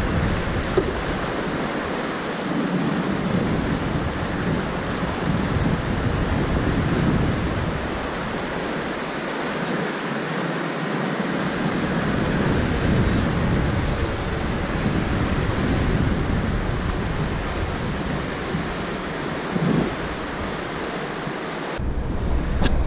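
Wind rushing over the microphone above choppy river water, a steady noise that changes abruptly near the end.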